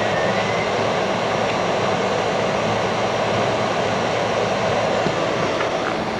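Commercial wall-mounted air conditioner on a portable classroom running, a steady fan-and-compressor noise with a low hum underneath.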